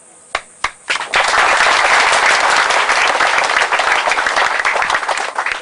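Crowd applauding: a few scattered claps, then dense applause from about a second in that dies away near the end.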